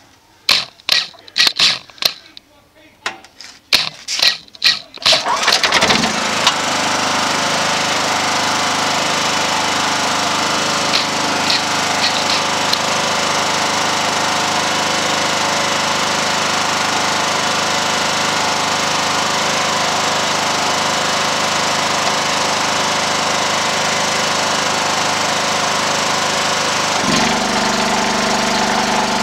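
Petrol generator being pull-started: several sharp bursts from the recoil starter and engine, then the engine catches about six seconds in and runs at a steady speed. Near the end its note shifts slightly lower.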